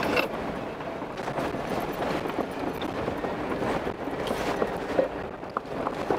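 Off-road vehicle driving slowly over a rough, rocky dirt road: a steady rumble of engine and tyres with frequent small clicks and knocks of stones and rattles, and a few sharper knocks about five seconds in and near the end.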